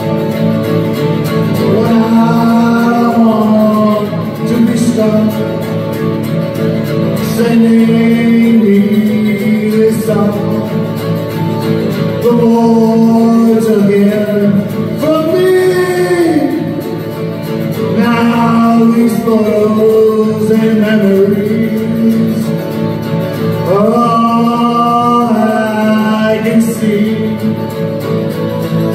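A man singing a country song, accompanying himself on a strummed acoustic guitar.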